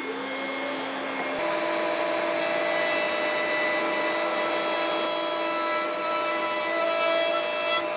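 Trim router in a benchtop router table, rising to full speed at the start and then running steadily with a high whine. About two seconds in, its Roman ogee bit starts cutting the edge of a small wooden piece fed along the fence, which adds a hissing cut noise that stops just before the end.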